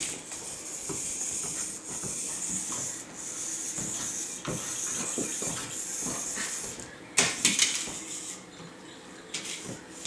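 A puppy playing on a hardwood floor: a hiss that comes in stretches of about a second, then a quick run of sharp taps and clicks of claws and paws on the wood a little after seven seconds in.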